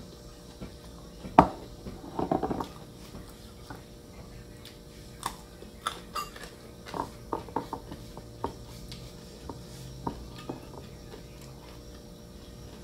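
Light clinks and taps of metal spoons against ceramic bowls at the table, scattered through the middle of the stretch, with one sharp knock about a second and a half in.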